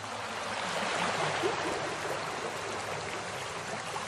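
Running water, a steady rushing and trickling like a stream, growing louder over the first second and then holding steady.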